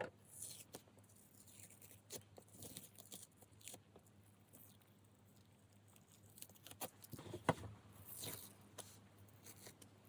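Faint scratching, rustling and swishing of drawing materials being handled on paper, with scattered light clicks and one sharper click about seven and a half seconds in.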